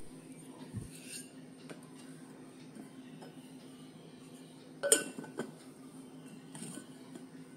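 Light clinks and knocks of painted bowls and their lids being handled and set down in a metal serving tray, a few scattered taps with the loudest clink about five seconds in, over a faint steady hum.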